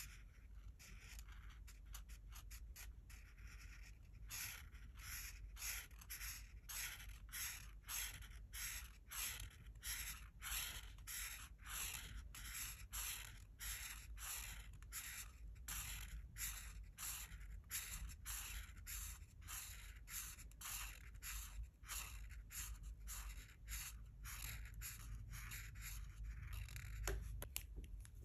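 Art marker nib stroking back and forth on paper, colouring in with quick, even strokes at about two a second, lighter for the first few seconds. A small click near the end.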